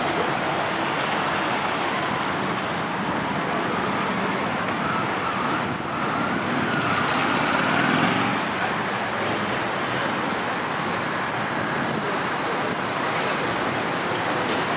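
Cruiser motorcycle engine running at low speed as the bike weaves through a cone slalom, under a steady rushing noise.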